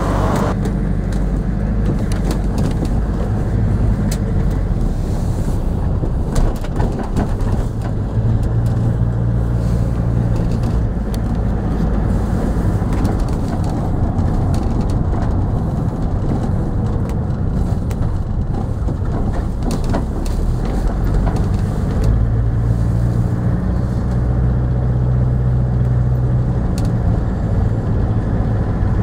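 Engine drone and road noise heard from inside a moving bus. The low engine note steps up and down a few times as the bus changes speed.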